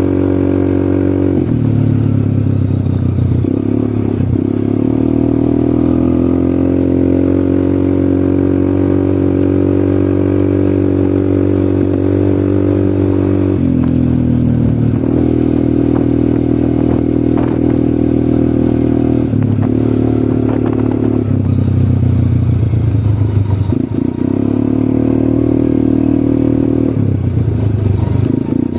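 ATV engine running loud and steady, its pitch rising and falling several times with changes of throttle.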